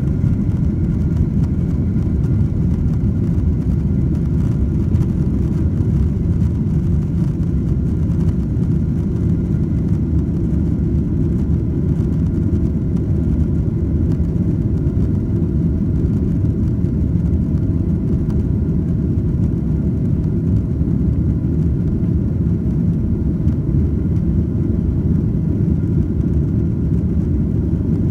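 Boeing 767-400ER's General Electric CF6 turbofans at takeoff thrust, heard from inside the cabin as a steady, loud low roar through liftoff and the initial climb. Faint steady whine tones sit above the roar.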